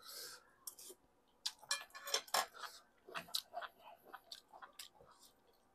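A person chewing a mouthful of stewed pork close to the microphone: a short slurp at the start, then a run of small, irregular wet clicks and smacks.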